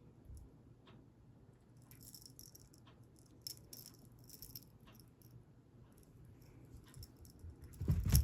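Cat toy rattling and jingling in short shakes, with small clicks, then a louder thump near the end.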